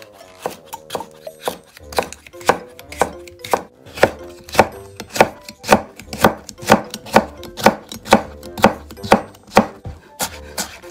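Chef's knife mincing a green bell pepper on a plastic cutting board, the blade striking the board in a steady rhythm of about two chops a second.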